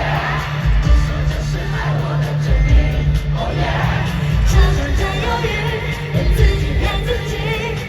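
Live dance-pop concert music: a heavy bass beat under a sung vocal, with some crowd yelling.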